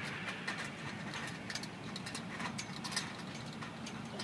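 Chain-link fence rattling and clinking as a person climbs over it: a run of quick, irregular metallic clicks over a steady low hum.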